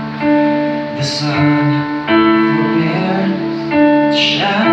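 A man sings a slow hymn into a microphone with long held notes, accompanying himself on a Casio digital piano.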